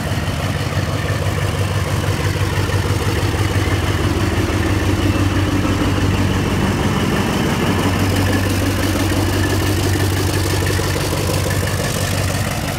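Diesel-electric locomotive of the TCDD DE 24000 class running as it moves a train: a steady engine drone whose pitch shifts about midway.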